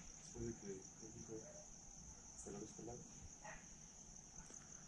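Crickets chirring steadily in one continuous high drone. A few faint, short, low pitched sounds come and go in the first three seconds.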